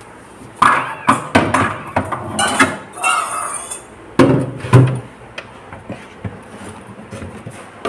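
Things being taken out of a refrigerator: a run of irregular knocks and clatters, with a short scrape about three seconds in and a louder clunk between four and five seconds in.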